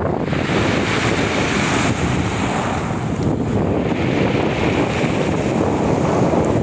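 Stormy sea surf breaking on the shore, with strong wind buffeting the microphone; the noise swells and eases as the waves come in.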